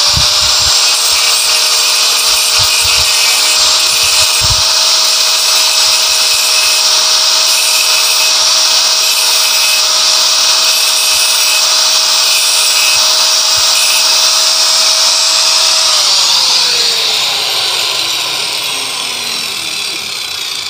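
Electric angle grinder with a cut-off disc running at full speed, cutting a short steel pipe with a steady whine and a hissing grind. About 16 seconds in it is switched off and its pitch falls as the disc winds down.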